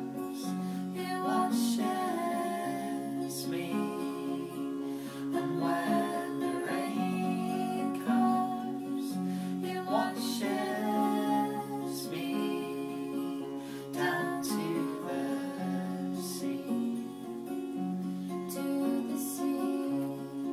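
Two acoustic guitars played together, a steel-string and a nylon-string classical, picking and strumming chords in a slow folk song.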